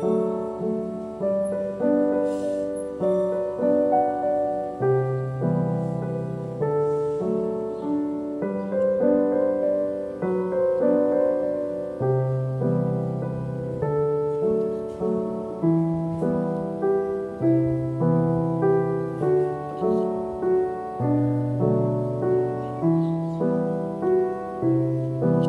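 Solo piano background music: a gentle, evenly paced melody over repeating low chords.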